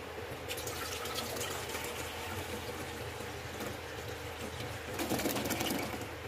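Milk pouring in a stream from a carton into a stainless steel pot, splashing into the liquid already in it. The pouring starts about half a second in and is loudest near the end.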